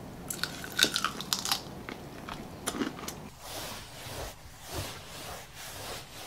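Crunchy bites into sauce-coated fried chicken, the breading crackling sharply several times in the first three seconds, followed by softer chewing.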